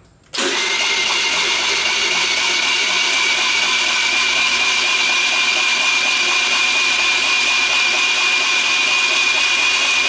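Starter motor cranking a 2013 Peace Sport 49cc scooter's 139QMB engine, cutting in abruptly and spinning steadily with a high whine. The engine does not catch, as the scooter has no spark.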